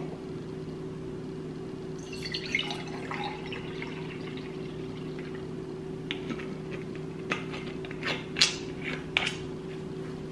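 Kombucha poured from a glass bottle into a stemmed wine glass, a short trickling splash about two seconds in, followed by several light clicks and taps of glass and bottle cap over the last few seconds.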